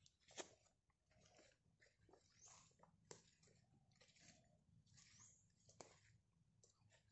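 Faint footsteps crunching through leaf litter and twigs on a forest path, with irregular soft snaps and rustles. The sharpest snap comes about half a second in.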